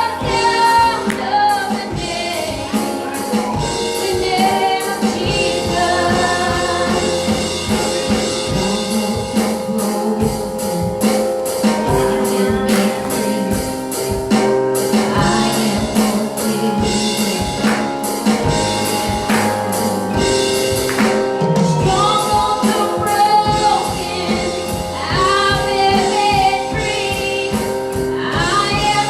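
Gospel worship music: singing over a band with a steady beat.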